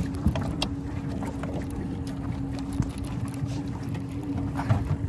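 Boat engine running steadily at trolling speed, a low rumble with a steady hum, under scattered clicks and knocks from a fishing reel being cranked by hand.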